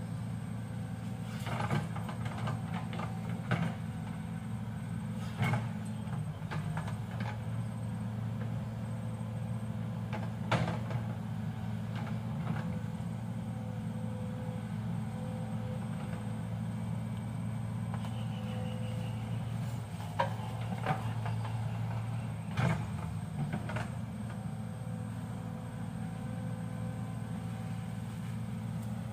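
Excavator's diesel engine running steadily, with scattered sharp clanks and knocks from the machine working.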